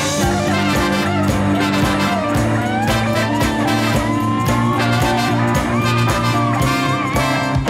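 Live band playing an instrumental passage: electric bass holding steady low notes under a horn section of saxophone, trumpet and trombone, with a lead line that slides and bends in pitch.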